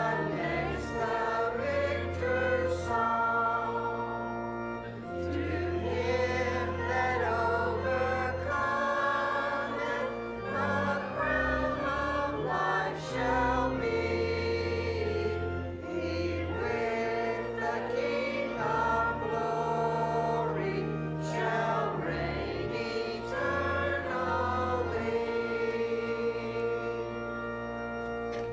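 Church congregation singing a hymn over an accompaniment of long held bass notes and chords. The music dies away at the very end.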